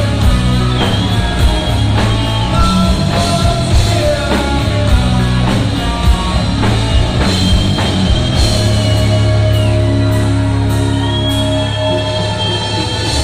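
Heavy metal band playing live and loud, with drums, bass and distorted electric guitar; long held high notes with slight bends ring out over the band.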